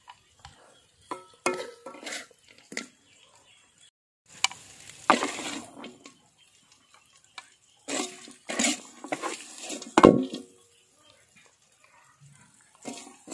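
Metal spatula scraping and clinking against a metal wok as fried chicken is scooped out onto a plate, in scattered short strokes with brief ringing, and a louder knock about ten seconds in.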